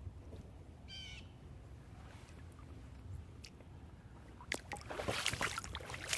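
A single short bird call about a second in, over a faint outdoor background. From about four and a half seconds, rustling and crackling footsteps through dry leaves and twigs, growing louder.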